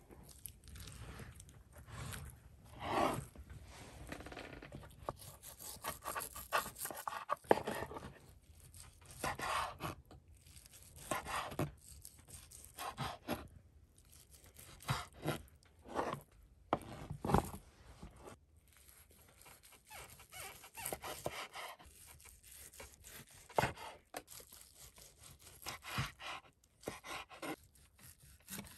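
Knife cutting and scraping meat in irregular strokes, with some tearing and crunching sounds.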